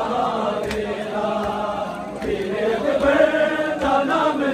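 Men chanting a Muharram lament (noha) together in a mourning chant, over rhythmic chest-beating (matam): hand slaps on bare chests about once every 0.8 seconds, in time with the chant.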